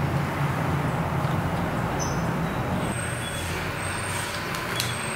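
A steady low mechanical hum, like a motor running, with a few low humming tones that shift slightly about three seconds in.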